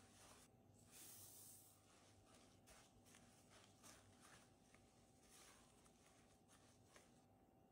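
Faint, irregular scraping and rustling of a silicone spatula stirring and pressing crumbly cookie dough in a glass bowl.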